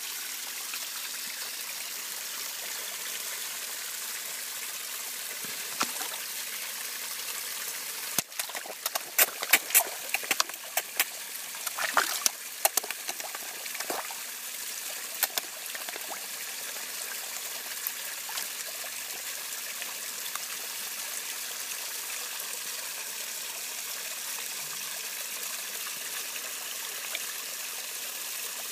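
Koi splashing and slurping at the water surface as they snatch food from a hand: a burst of sharp splashes and smacks from about eight to sixteen seconds in, with a few more later. Underneath is a steady trickle of running pond water.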